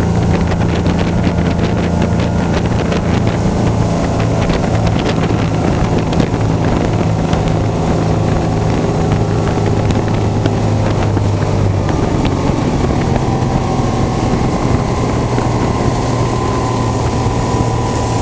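Outboard V4 motor of a 1964 Johnson OMC Deluxe runabout running steadily at speed, with water rushing past the hull and wind on the microphone. The engine note shifts slightly about twelve seconds in.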